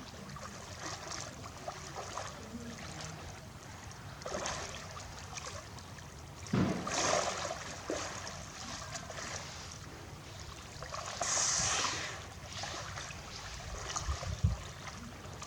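Water moving and trickling in a hippo pool, with a few louder sudden sounds over it, the loudest about six and a half seconds in.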